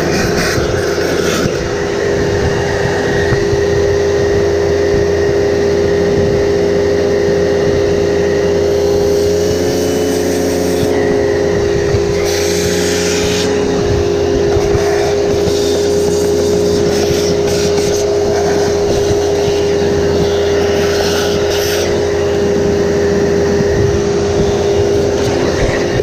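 Upright vacuum cleaner's motor running steadily with a constant whine and a rush of air; the pitch dips and the airflow changes briefly about ten seconds in.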